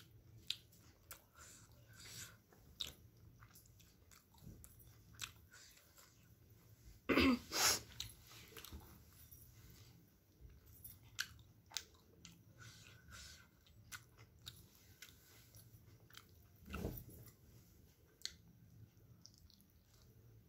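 Close-up chewing and biting of steamed chicken momos: soft, wet mouth sounds with many small clicks. Two louder noises come close together about seven seconds in, and another about seventeen seconds in.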